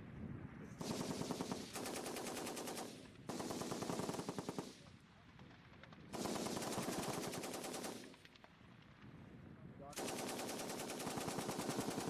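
An M60 7.62mm machine gun fires four bursts of automatic fire. Each burst lasts about one and a half to two and a half seconds, with short pauses between them.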